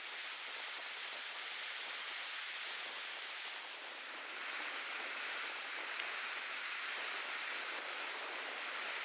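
Surf washing on a beach: a steady hiss of breaking waves that eases briefly about four seconds in, then swells again.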